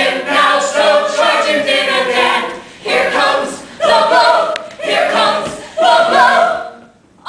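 Cast of men and women singing together in a stage musical ensemble number, in short phrases with brief breaks, the singing stopping shortly before the end.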